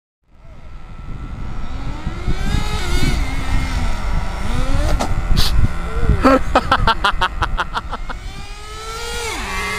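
Small nitro engine of a radio-controlled car revving up and down, its high whine rising and falling as it accelerates and lifts off, with wind rumble on the microphone. A fast rattle of sharp clicks comes a little past the middle.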